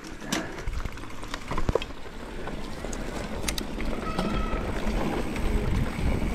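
Mountain bike riding fast down a dirt trail: a low rush of tyres on dirt and wind that grows louder as speed builds, with scattered clicks and rattles from the bike.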